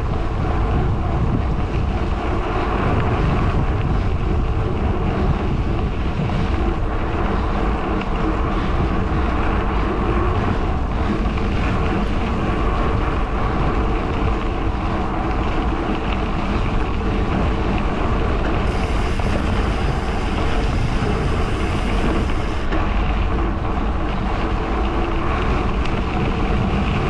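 Wind rushing over the microphone of a camera carried on a moving bicycle: a steady, fairly loud low rush.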